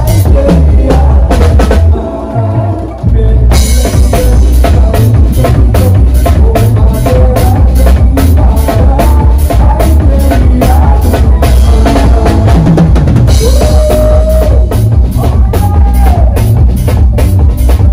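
Live band playing loud music, led by a drum kit with a quick, steady beat, with bass guitar and keyboard. The drums and bass drop out briefly about two seconds in, then the full band comes back in.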